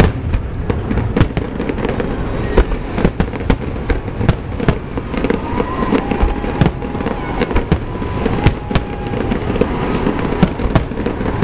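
Aerial fireworks shells bursting in quick, irregular succession: many sharp bangs, often more than one a second, over a continuous rumble of further explosions.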